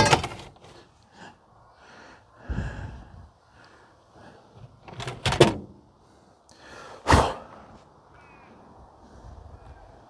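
Handling noise from gear being moved about right next to the microphone: rustles and several sharp knocks, the loudest right at the start, about five seconds in and about seven seconds in, then only faint steady background noise.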